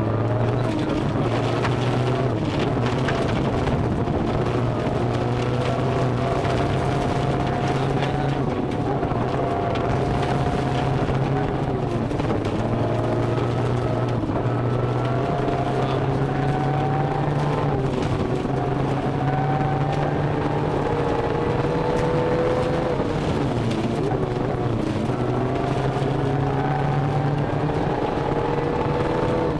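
Toyota Corolla rally car's engine heard from inside the cabin, driven hard on a gravel stage. The revs climb slowly and steadily, drop back twice, then climb again, over a constant rumble of tyre and road noise.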